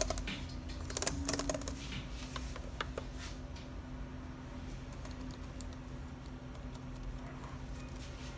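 Keys of an Asus laptop keyboard pressed one by one in a key test: a quick run of clicks in the first few seconds, then only an occasional click, over a low steady hum.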